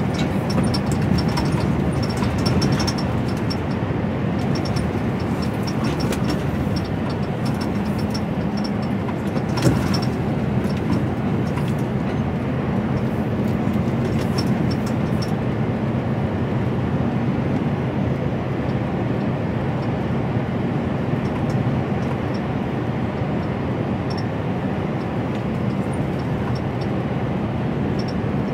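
Inside a lorry cab on the move: the HGV's diesel engine drone and road noise, steady throughout, with one short knock about ten seconds in.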